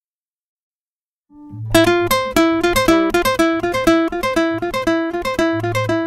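Instrumental music in a Latin blues style: after about a second of silence, a plucked-string melody starts, a quick, even run of notes over a low bass note.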